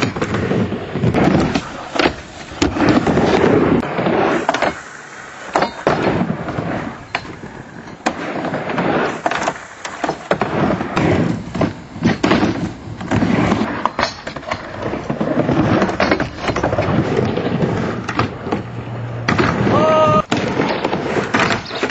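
Skateboard rolling back and forth on a wooden mini ramp: a rumble of wheels on the wooden surface, broken by many sharp clacks and knocks as the board and trucks hit the ramp.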